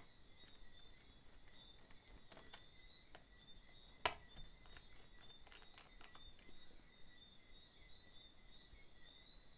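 Mostly near silence with a few faint clicks and taps of a small screwdriver working the screws of a laptop battery, and one sharper click about four seconds in. A faint high chirping repeats underneath.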